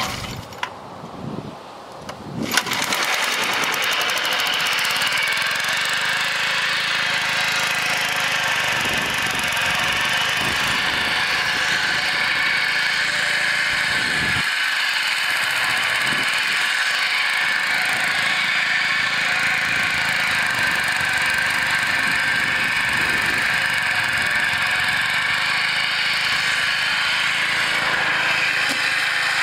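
Vintage Mott hammer knife (flail) mower running: its gas engine and spinning flail blades come in loudly about two and a half seconds in, then run on at a steady pitch and level, as when working through tall grass.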